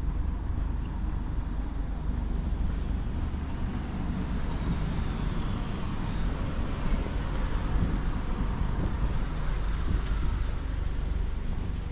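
Road traffic going by, with one vehicle passing close about halfway through, its noise swelling and then fading away over a steady low rumble.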